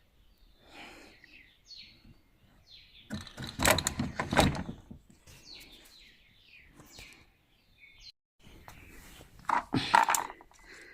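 Small birds chirping in short calls throughout, with two spells of clattering knocks from parts being handled, one about four seconds in and a louder one near the end.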